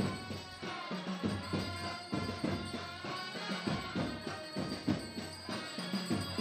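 Procession band music: a melody on wind instruments over repeated drum and percussion beats.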